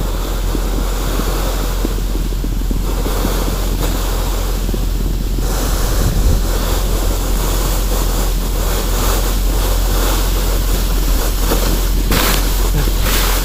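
Wind buffeting the microphone as the sled is swung round by the excavator, a dense rushing noise, over a steady low rumble from the Kobelco SK210 excavator's engine.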